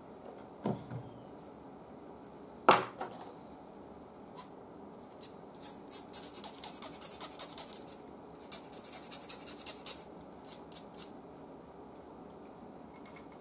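Small hand tools working on old radio wiring: a few sharp clicks, the loudest a snip about 2.7 s in, then two spells of rapid scratching and scraping.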